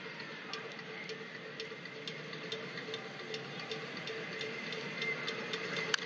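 Ballpark crowd background with an even ticking, about two to three ticks a second. Just before the end comes the sharp crack of a bat hitting the ball as the batter fouls off a full-count pitch.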